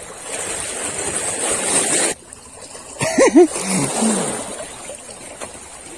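Small waves lapping and splashing against shoreline rocks, heard as a steady rush of water noise that cuts off abruptly about two seconds in. A person's voice is heard briefly about a second later.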